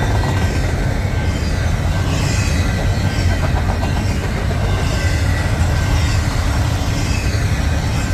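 Cars of a BNSF double-stack intermodal freight train rolling past, a steady loud rumble of steel wheels on rail with a faint high whine held throughout.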